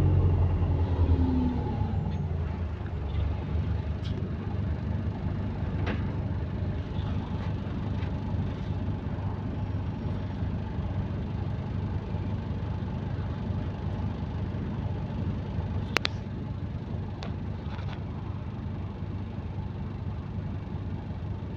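Bus engine and drivetrain with an exhaust leak: a falling whine over the first couple of seconds as the bus slows, then a steady low rumble. Scattered clicks and knocks sound over it, the sharpest about 16 seconds in.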